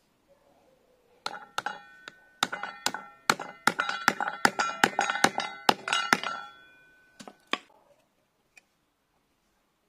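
Small hammer tapping a metal ferrule onto a knife's tang, about four strikes a second for some five seconds, each with a bright metallic ring from the blade, then three last taps near the end.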